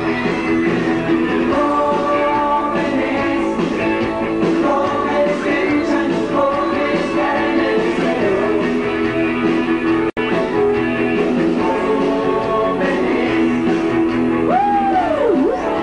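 Rock band playing live with electric guitar and singing, a few sliding notes near the end. The sound drops out for an instant about ten seconds in.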